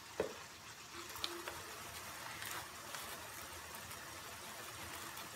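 Masala paste frying in a kadai over a gas flame, sizzling and bubbling softly, with a light knock near the start.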